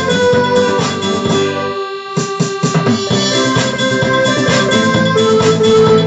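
Casio CTK-595 home keyboard playing a disco polo tune over its rhythm and bass backing. About two seconds in the low backing drops out briefly, a few sharp drum strikes come in, and the full accompaniment returns.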